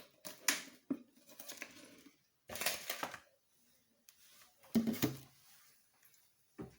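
Kitchenware being handled: a few separate knocks and clatters of containers and utensils, one of them longer, with quiet between.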